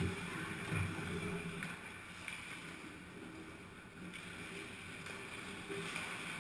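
Ice hockey rink ambience: players skating and handling sticks and puck at a distance, with a few faint clicks over a steady low hum.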